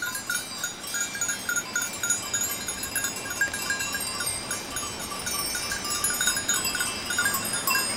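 Bells on a herd of goats clinking and clanking irregularly as the goats move about.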